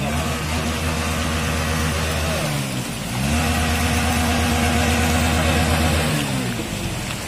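A small vehicle engine revved up and held twice: it climbs to a steady note, falls back about two and a half seconds in, climbs again about three seconds in, and drops near six seconds.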